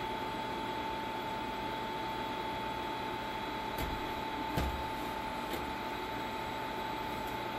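NuWave induction wok base running on high heat: its cooling fan hissing with a steady high whine over it. A few light knocks near the middle.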